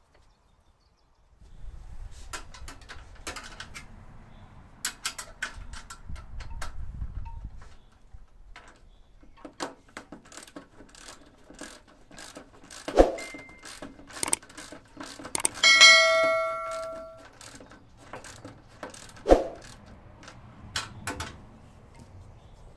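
Hand tools working the bolts of a steel saw stand: irregular metal clicks and clinks, with two sharp knocks. About sixteen seconds in, a metal part rings like a bell for over a second.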